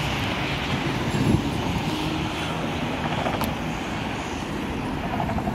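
Road traffic on a city street: cars driving past, with engine and tyre noise.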